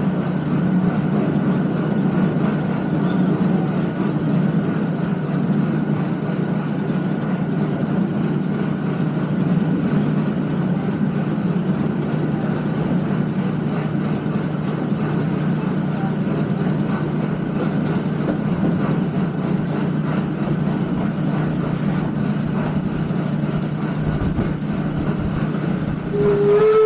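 Steady low rumble and hum of a narrow-gauge steam train. Near the very end a steam whistle starts to blow, its pitch rising slightly.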